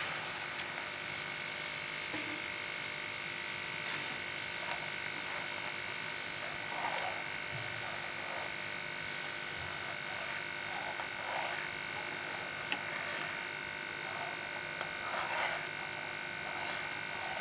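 Sugar syrup bubbling and sizzling in a pan of hot ghee-roasted semolina as it is stirred in with a spoon, over a steady hum.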